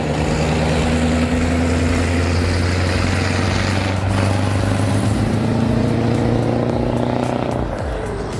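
Scania 142 log truck's V8 diesel engine roaring as it hauls a load of logs along the road. Its note rises a little past halfway and then drops back near the end.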